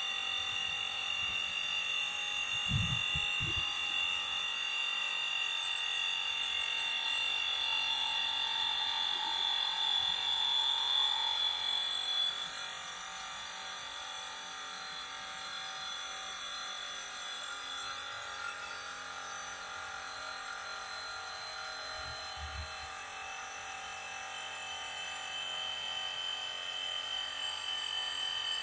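Hamaan HMTI-2000 cordless portable tyre inflator running while it pumps up a car tyre: a steady small-compressor whine with several high tones. It eases slightly in level about twelve seconds in, and there are a couple of brief low bumps, about three seconds in and again near twenty-two seconds.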